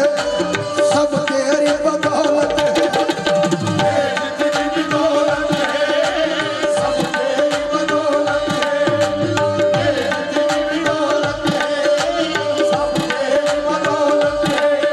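Qawwali accompaniment: tabla playing a fast, steady rhythm under the sustained notes of a harmonium.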